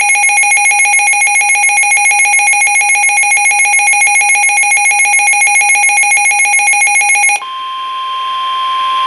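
Weather radio alert alarm: a loud, rapidly pulsing electronic beeping that cuts off about seven seconds in. It is replaced by the NOAA Weather Radio warning alarm tone, a single steady 1050 Hz tone that grows louder and signals that a warning message is about to be read.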